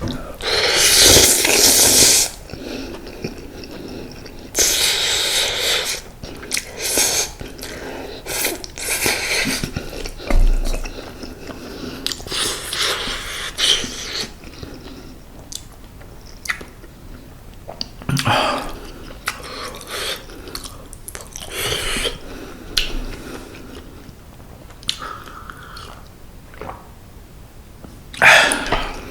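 Close-miked mukbang eating sounds of a person chewing mala-tang ramen noodles, with several louder noisy mouthfuls at irregular intervals and softer chewing between them.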